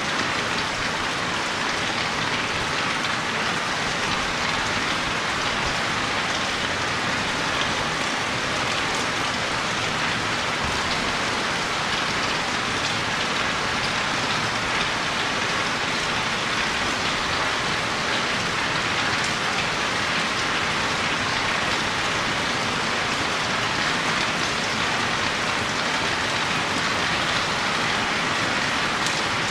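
Steady rain falling, a continuous patter of drops on surfaces with no breaks or changes.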